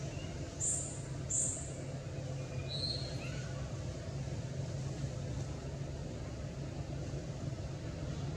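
Steady low mechanical hum with a few short, high bird chirps in the first three seconds.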